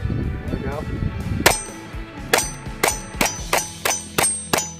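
Glock 44 .22 LR pistol firing about eight shots: one about a second and a half in, then a quick string at roughly three shots a second, each with a short high ring after it. The pistol is cycling from a Promag 18-round magazine loaded to 13 rounds.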